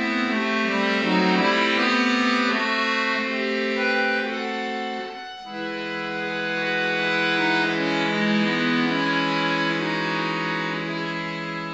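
Piano accordion played solo, sounding sustained chords with a melody moving over them; the sound breaks off briefly about five seconds in, then a new held chord begins.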